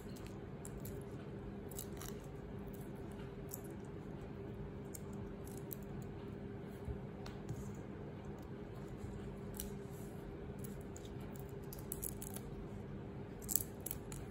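Shrimp being peeled by hand: scattered small, sharp clicks and snips of shell, a quick cluster of them near the end, over a steady low hum.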